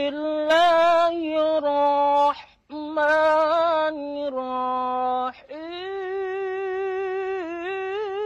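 A man chanting Quran recitation (tilawah) in a high, melismatic voice: long held notes with ornamented turns, broken by two short breaths, about two and a half and five and a half seconds in.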